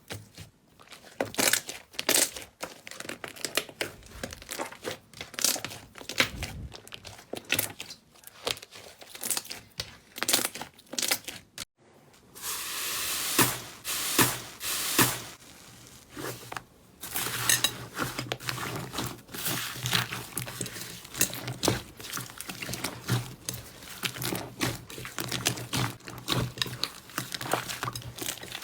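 Slime being squeezed, stretched and poked by hand, making a dense run of sticky crackles and pops. The sound breaks off briefly about twelve seconds in, and a new stretch of crackling follows over a faint low hum.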